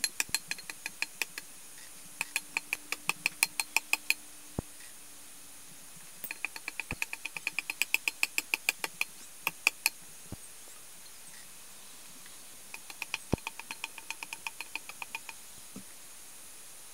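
Hand tool chopping into a log face as it is hewn flat: bursts of rapid light strokes, about five a second, each burst lasting a second or two, with a few single heavier knocks in between.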